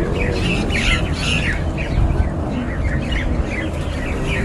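House sparrow chirping in a quick run of short, sharp notes, over a steady low hum.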